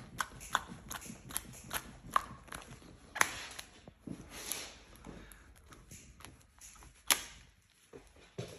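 Black peel-off face mask being pulled off a man's face, coming away from the skin with irregular sharp crackles and snaps; the loudest snaps come about three seconds in and again about seven seconds in.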